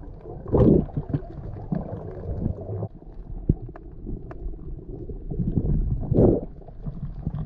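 Muffled underwater sound on a diver's camera: low rumbling water noise with two louder whooshing surges, about half a second in and near the end, and scattered sharp clicks.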